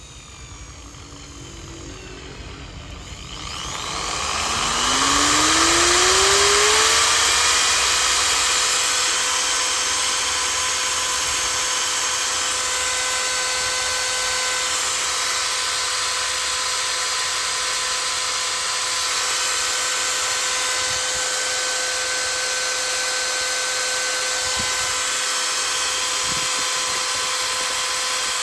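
750 W electric impact drill motor spinning up about four seconds in, its whine rising in pitch over a few seconds, then running steadily at full speed with a constant high whine and hiss.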